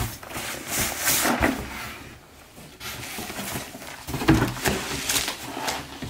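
Crinkling of a plastic gift bag and rustling, scraping cardboard as a box's flaps are pulled open, in irregular bursts, with bubble wrap being handled.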